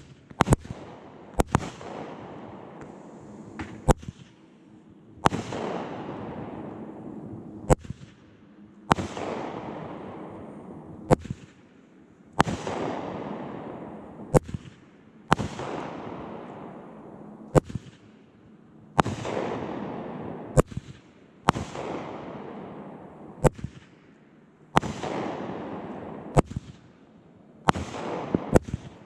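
Consumer aerial fireworks fired a few feet away: a steady series of sharp reports, one every one to two and a half seconds, each followed by a hiss that falls in pitch over a second or two. A quick volley of reports comes near the end.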